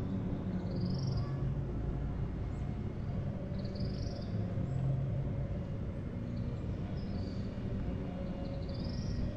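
Birds calling, short high chirps repeating every second or two, over a steady low rumble.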